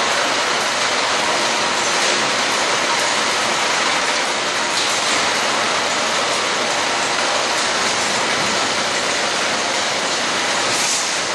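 Chain crate conveyor running, its twin white slat chains travelling along the stainless-steel track under a plastic crate: a loud, steady mechanical noise that does not change.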